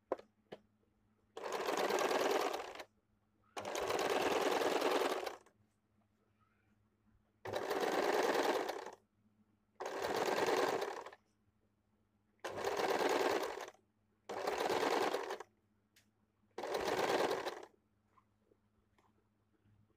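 Electric sewing machine stitching in seven short runs of a second or so each, stopping between them while the fabric is repositioned.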